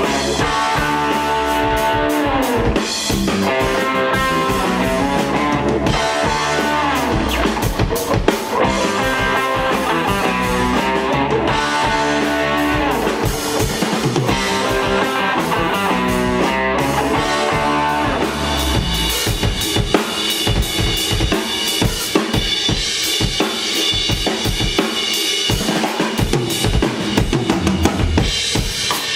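Live blues-rock band playing: electric guitars over bass and a drum kit. The guitar lines are prominent through the first half, and the drums come to the fore in the second.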